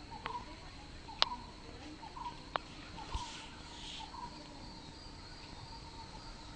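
A bird calling a short chirp over and over, about every two-thirds of a second, over a steady high insect drone. Three sharp clicks come in the first few seconds, the loudest about a second in.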